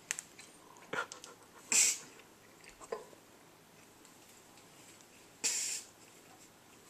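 Short, breathy bursts of air through the nose and mouth from a person stifling laughter while chewing food: a few quick snorts, with louder hissing ones about two seconds in and again about five and a half seconds in.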